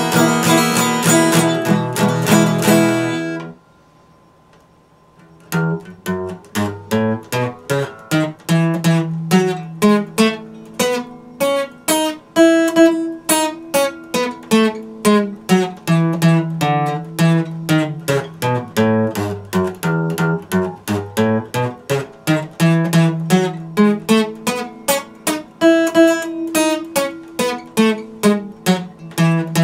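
Epiphone acoustic guitar: rapid strumming that stops abruptly about three and a half seconds in, a short pause, then a steady stream of picked single notes.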